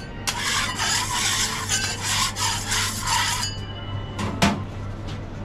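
Broad steel scraper rasping across a round steel griddle plate in quick repeated strokes for about three seconds, scraping the cooking surface clean. About a second after the scraping stops there is a sharp knock, the loudest sound.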